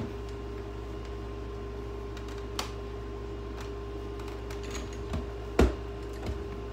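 A refrigerator compressor running under power out of its cabinet, giving a steady hum with a constant tone. A few short knocks and clicks break in, the loudest about five and a half seconds in.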